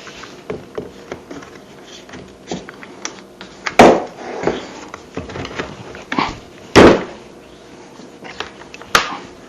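Parts of a small pole saw being handled and knocked together: light clicks and rattles, with two loud clunks about four and seven seconds in and a sharper knock near the end.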